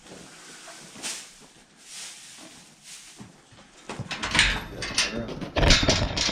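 A young Jersey calf moving about: a few soft breathy puffs, then from about four seconds in a dense run of knocks, thuds and scuffling as her hooves clatter and scrape on the floor.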